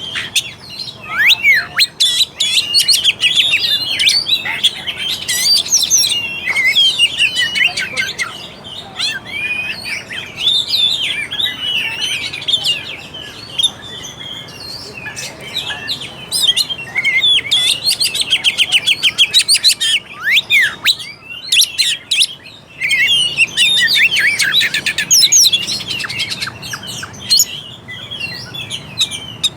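Oriental magpie-robin (kacer) in full song: a rapid, unbroken stream of varied whistles, chirps and rasping notes, with a brief pause about two-thirds of the way through.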